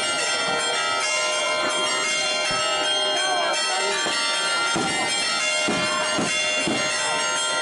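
Church bells ringing in a steady, dense peal, with voices of the crowd over them.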